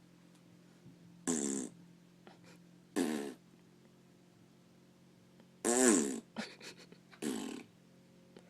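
Four short fart-like raspberry noises, buzzy and bending in pitch; the third is the longest and loudest, trailed by a few small sputters.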